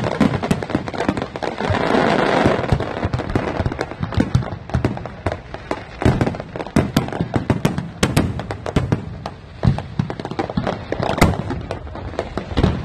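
Aerial fireworks display: a rapid, irregular stream of bangs and cracks from shells launching and bursting overhead, densest about two seconds in.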